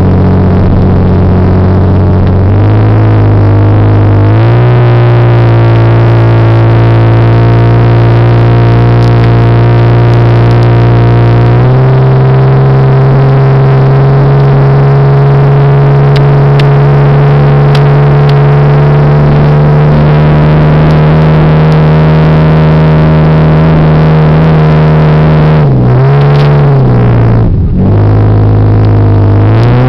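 1993 Ford Ranger's 3.0-litre V6 with automatic transmission, heard loud from inside the cab, working at full throttle up a steep hill. A steady engine drone steps up in pitch three times in the first twelve seconds and holds there, then drops sharply twice near the end before climbing back up. The engine is labouring: the truck barely makes the grade with the pedal floored.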